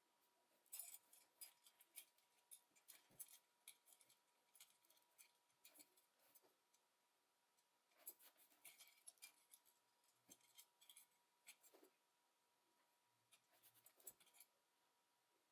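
Faint, irregular clicks and scrapes of small tools on plastic and small parts being handled as a Logitech G304 wireless mouse is taken apart, coming in short clusters.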